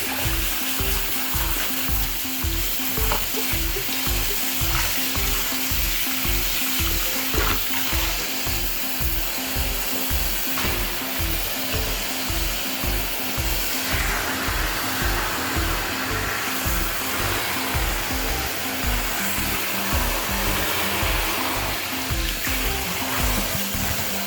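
Background music with a steady beat over a continuous steady hiss.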